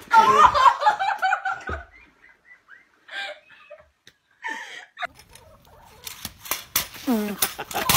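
A loud, high-pitched shriek of laughter, then a few quieter voice sounds. Near the end, the sharp repeated clicks of a pogo stick bouncing on concrete, mixed with falling cries.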